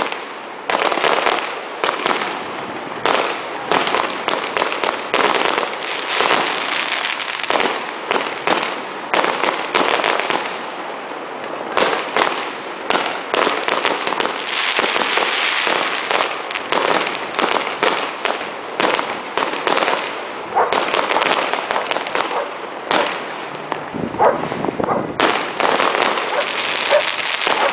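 Fireworks and firecrackers going off without a break: a dense crackle with many sharp bangs close together.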